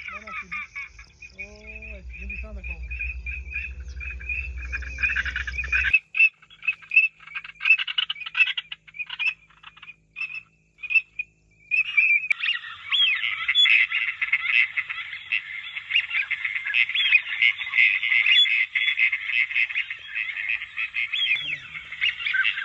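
A dense chorus of many small animals calling at once, a rapid mass of short chirps and croaks that becomes fuller and louder about halfway through. A low rumble underlies the first few seconds and stops abruptly.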